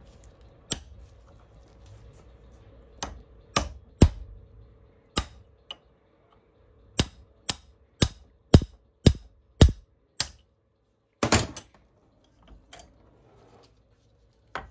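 A series of sharp metal knocks as the piston rod is driven down into the Graco paint sprayer displacement pump's cylinder and packings: a few scattered strikes, then a run of about two knocks a second, and a short rattling cluster near the end.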